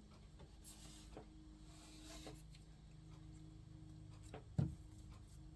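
Faint rustling and light taps of paper craft pieces being handled and pressed onto a paper plate, with one louder dull thump about four and a half seconds in, over a steady low hum.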